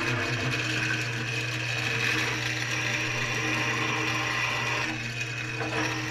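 Drill press running with a steady hum as a freshly hand-sharpened twist drill bores into a steel block, cutting cleanly with good chips coming off.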